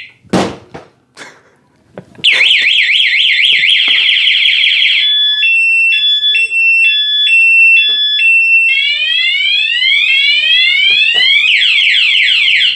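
A thump as the motorcycle is struck, then about two seconds in its anti-theft alarm siren goes off at full alert. It plays a fast warbling wail, switches to an alternating two-tone, then to repeated rising sweeps, and returns to the fast warble near the end. This is the alarm's full alert after the bike keeps being disturbed past its warning chirp, and it keeps sounding until it is unlocked.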